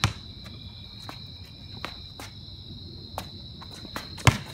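Basketball bounced on a concrete driveway: a sharp bounce right at the start and another near the end, with a few lighter thuds in between. Insects trill steadily underneath.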